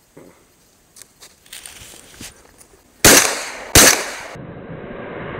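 Two shotgun shots about three-quarters of a second apart from a Breda semi-automatic. The second goes off too early, before the second bird is aimed at: the finger, used to a heavier trigger, does not feel the semi-auto's light pull. Faint rustling comes before the shots, and a steady hiss follows them.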